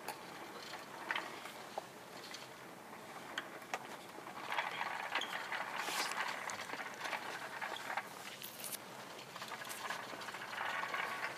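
Ambience of a large hall: a steady background hiss with scattered light clicks and knocks, getting busier and louder from about four and a half seconds in.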